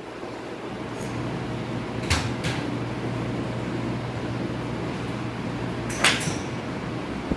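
Driving-range ambience: a steady low hum with a few sharp clicks, two close together about two seconds in and another about six seconds in.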